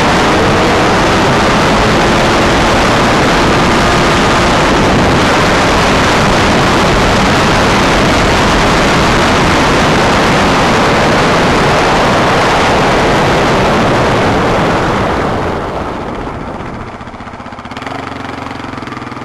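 Quad (ATV) engine running hard at speed, largely buried under loud wind rushing over the onboard microphone. About fifteen seconds in the noise falls away as the quad slows down.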